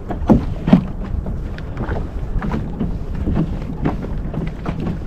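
Small waves slapping and lapping against a kayak's hull, with a steady wind rumble on the microphone. Two louder slaps come in the first second.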